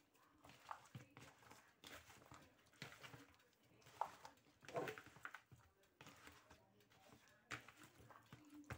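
Near silence, with faint wet squishes and light scattered taps of a hand mixing spice-coated mackerel pieces in a plastic bowl.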